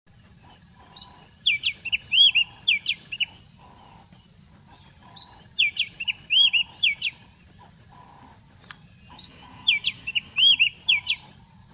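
A songbird singing the same phrase three times: a quick run of loud whistled notes lasting about two seconds, with pauses of about two seconds between phrases. A faint low rumble sits underneath.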